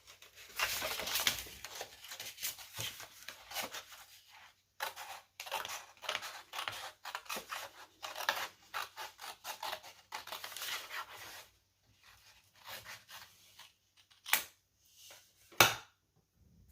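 Scissors snipping through paper in quick repeated cuts, working around a cut-out handprint shape; the cutting stops about twelve seconds in, followed by a few separate sharp clicks, one of them loud.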